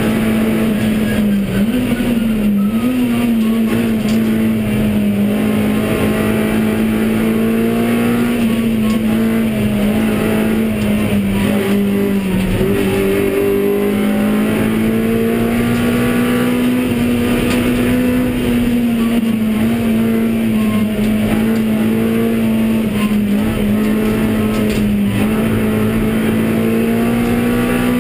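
Honda Civic Type R EP3's four-cylinder engine running hard at high revs under race load, heard from inside the cabin, its pitch held high with brief dips and rises several times as the driver shifts and lifts, over steady road and wind noise.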